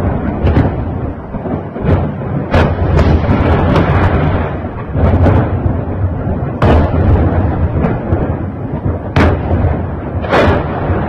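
Series of distant explosions and sharp cracks from a large fire, over a continuous low rumble; the cracks come every second or two, the loudest about nine and ten seconds in.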